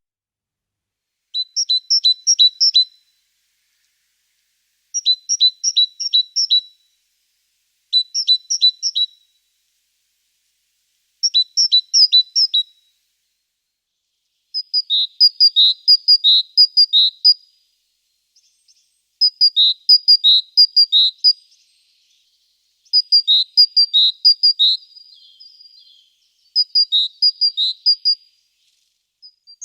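A small songbird singing: short phrases of quick, high, repeated two-note motifs, each phrase about a second and a half long, repeated every few seconds.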